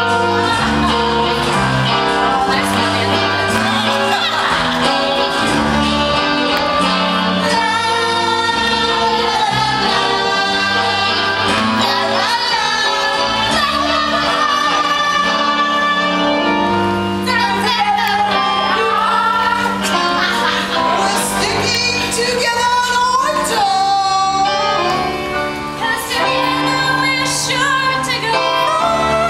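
Female voices singing a musical-theatre song over instrumental accompaniment with a steady bass line.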